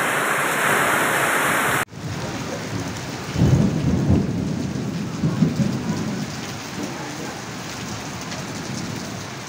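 Heavy rain pouring steadily, broken off abruptly about two seconds in and then resuming, with low rumbling swells in the middle.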